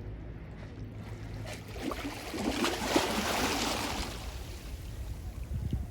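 A sea wave breaking and washing up the shore, its hiss swelling about a second and a half in, peaking around three seconds, then fading away, over a steady low rumble.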